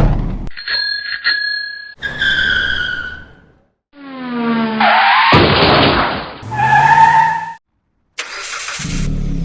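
A string of separate short stock sound effects one after another: a sudden hit at the start, a few quick beeps, a ringing tone, a longer noisy sweep whose pitch falls, a short two-note tone, then a lower steady sound near the end.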